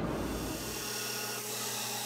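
Belt grinder running with a steel knife blank pressed to the belt to grind its profile: a steady grinding hiss over a steady motor hum.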